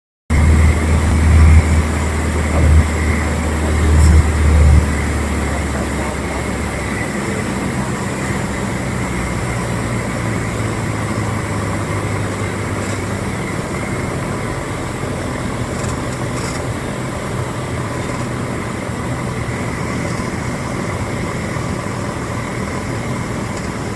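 Cessna 150J's four-cylinder Continental O-200 engine and propeller droning steadily, heard inside the cockpit in flight. Heavy low buffeting comes in surges during the first five seconds, then the drone runs evenly.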